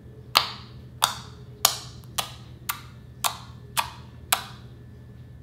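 Fingertips poking into a puddle of glossy slime, each poke pulling free with a sharp pop of trapped air: eight pops at a steady pace of about two a second.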